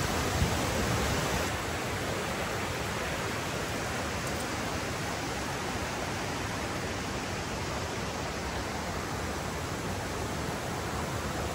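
Spring-fed stream flowing fast over rocks as white water, a steady rushing that drops a little in level about a second and a half in.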